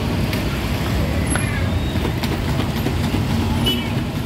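Busy street ambience: a steady low traffic rumble with scattered clicks and clatter and snatches of distant voices.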